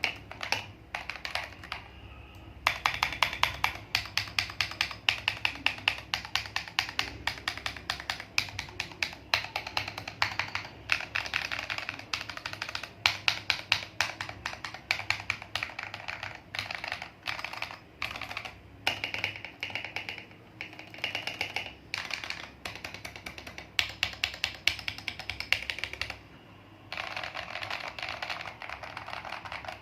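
Typing on an Akko ACR67 acrylic mechanical keyboard with tactile Boba U4T switches on the letters, Akko Lavender Purple switches on the other keys, an FR4 plate and ASA-profile keycaps: a steady run of quick key clacks. There are short pauses about two seconds in and a little before the end, followed by a faster run of keystrokes.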